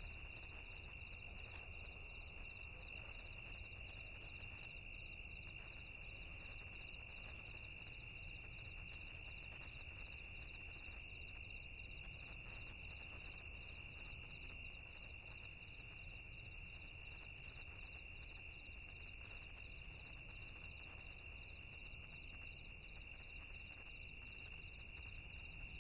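Faint, steady high-pitched chirring of insects, with a higher trill that starts and stops every second or so, over a low background rumble.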